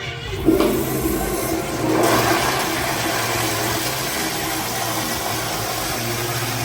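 Commercial restroom toilet flushing: a sudden rush of water starts about half a second in, surges again around two seconds, then keeps running steadily.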